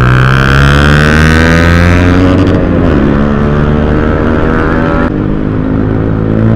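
Motorcycle engine with a loud aftermarket exhaust, revving hard at speed; its pitch shifts about three seconds in, and the exhaust is really loud.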